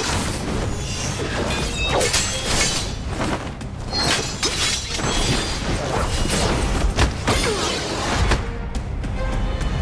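Martial-arts sword-fight sound effects, a rapid string of swishes, clashes and heavy hits, over dramatic soundtrack music with a low rumble.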